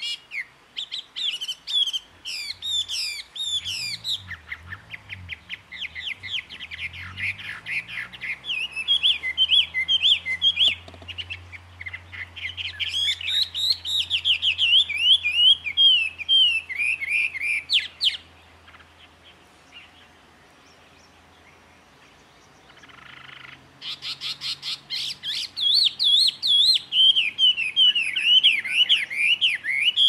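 A songbird singing long, rapid runs of quick rising and falling whistled notes and trills. It pauses for about five seconds a little past halfway, then starts again.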